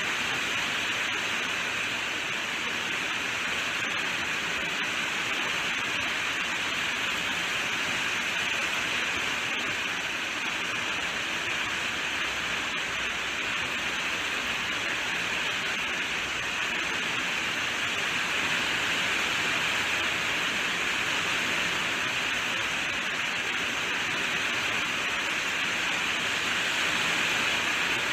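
Steady rainfall: a continuous, even hiss of rain falling, without distinct drops or thunder.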